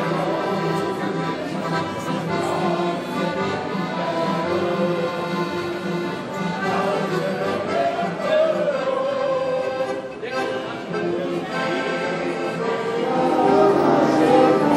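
Live folk dance music played on accordion and acoustic guitar. It dips briefly about ten seconds in, then carries on a little louder.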